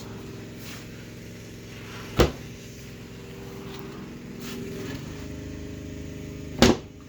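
A steady low mechanical hum, with two sharp knocks about four seconds apart, the second one louder.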